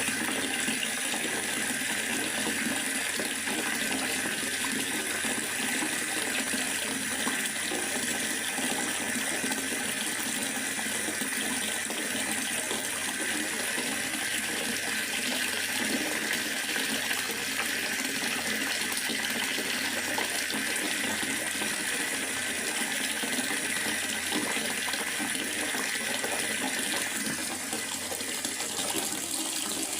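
Steady rain falling in a forest: a continuous, even hiss of water.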